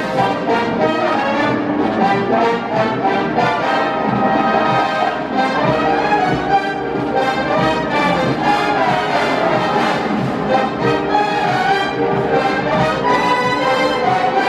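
High school wind band playing, with the brass (horns, trombones, trumpets) carrying the melody over a steady drum beat.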